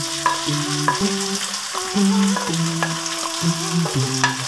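Sliced onions and garlic sizzling as they fry in hot mustard oil in a wok, stirred with a wooden spatula. Background music with a melody of held notes plays over the sizzling.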